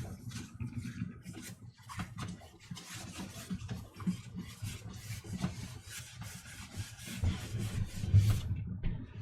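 Rubbing strokes, repeated rapidly, from wiping a TV's casing to clean off a film of nicotine.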